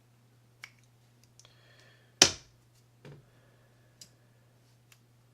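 Small parts of a Shimano Citica 200D baitcasting reel clicking and tapping as they are handled and set down during disassembly. There are a handful of light clicks and one sharp loud click about two seconds in.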